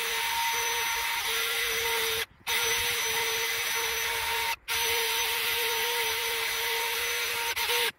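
Cordless drill spinning a wire brush against the rusty face of a car's rear wheel hub: a steady motor whine with a scratchy hiss of wire on metal. It stops briefly twice and cuts off near the end.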